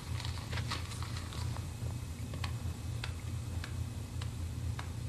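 A low pulsing hum under scattered light clicks and rustles of paper pages being handled.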